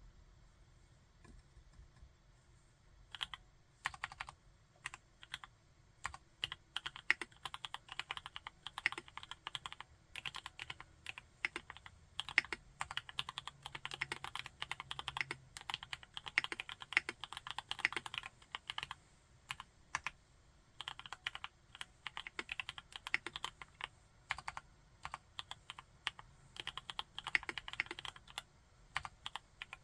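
Typing on a TKD Cycle 7 mechanical keyboard with Lunar MMD Princess tactile switches. Fast, continuous keystrokes begin about three seconds in, with one short pause about two-thirds of the way through.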